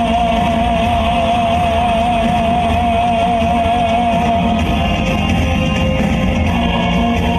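Loud recorded dance music with a steady heavy beat; a long held note with a wavering pitch sounds over it and stops about four seconds in.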